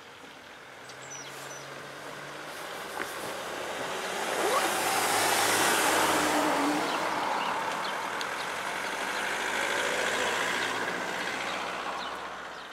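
Cars driving past on the street, with tyre and engine noise. One swells loud as it passes close about five seconds in, a second passes a few seconds later, and the noise dies away near the end.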